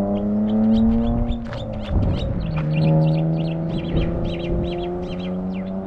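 A car engine revving up, its pitch climbing for about a second and a half, breaking off near two seconds in, then holding a steady drone. Small birds chirp in quick short calls throughout.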